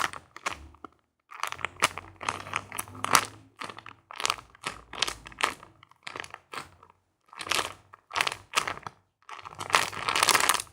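Bread-shaped foam squishy toy being squeezed and handled over and over, giving many short, irregular rustles.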